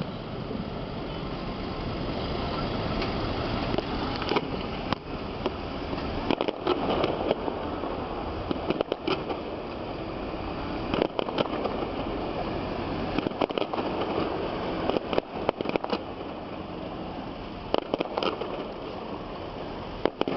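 Fireworks going off: sharp bangs and crackles at irregular intervals, some in quick clusters, over a steady background rush.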